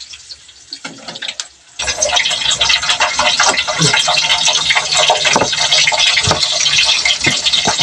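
Julienned ginger sizzling and crackling in hot cooking oil in a pan, the frying noise starting suddenly about two seconds in, loud and steady, while a spoon stirs it.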